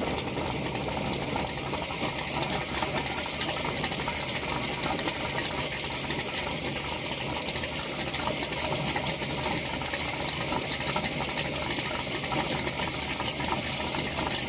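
Car engine idling steadily with a fast, even mechanical clatter and no revving.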